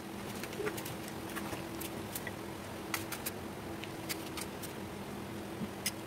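Kitchen knife cutting a green apple into slices over a plate: irregular sharp clicks and crunches over a steady low hum.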